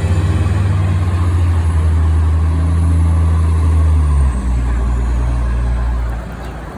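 Orion diesel city bus engine running under load, heard from inside the bus, with a faint high whine above it. The engine note drops about four seconds in and gets quieter near the end.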